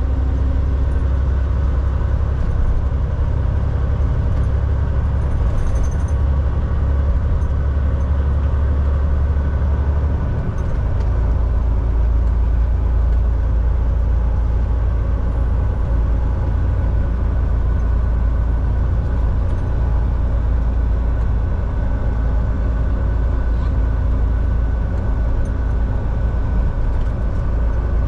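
Volvo VNL semi-truck driving on the road: steady engine drone and road noise. The low engine hum drops a step about ten seconds in.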